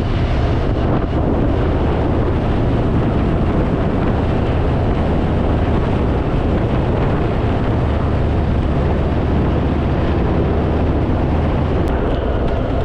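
Harley-Davidson Fat Boy's V-twin engine running steadily at cruising speed, under heavy wind noise on the microphone.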